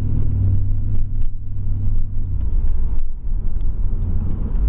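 Car engine and road noise heard from inside the moving car's cabin: a steady low rumble that deepens a little about halfway through.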